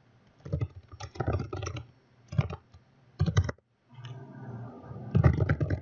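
Typing on a computer keyboard: several quick runs of keystrokes with short pauses between them, the longest run near the end.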